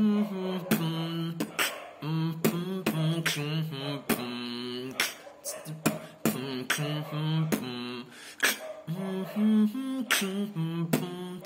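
Beatboxing with humming: a closed-mouth hummed melody held and stepping between notes, while sharp percussive mouth sounds keep a steady beat over it.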